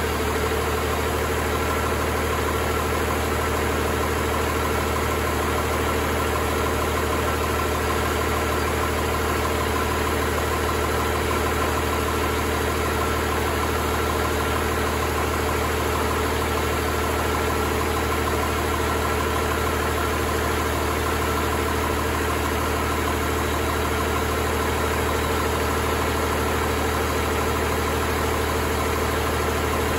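2020 Paccar PX-9 inline-six diesel engine idling steadily.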